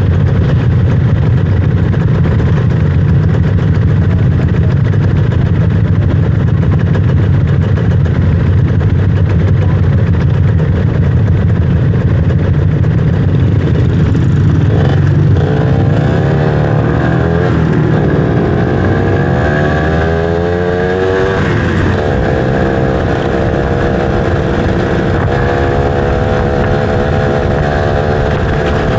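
Motorcycle engine running steadily on the move. About halfway through, its pitch rises and falls several times as the revs change, then it settles into a steady, lower, quieter note near the end.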